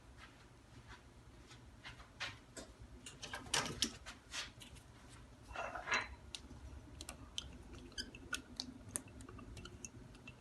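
Faint scattered clicks and taps of a spoon against a yogurt pot and mixing bowl as yogurt is spooned into cake batter, a little louder about three to four seconds in and again around six seconds.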